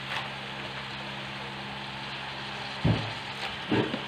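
Chicken afritada sizzling and simmering in a metal wok, a steady crackling hiss. Two soft thuds follow about three seconds in as raw chicken pieces are dropped into the pan.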